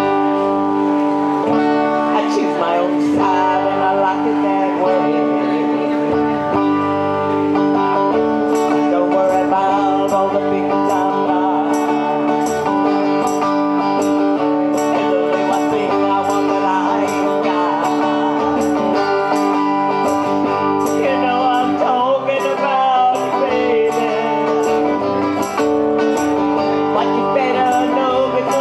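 Live music: an electric guitar plays over sustained backing chords, with a woman singing at times. A steady ticking beat, about two ticks a second, comes in about a third of the way through.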